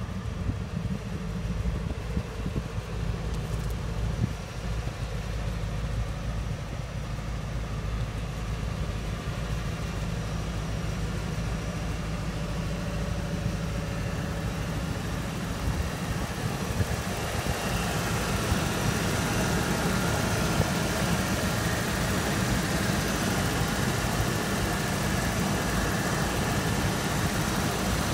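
Ford 460 gas V8 idling steadily, getting louder and fuller about two-thirds of the way through.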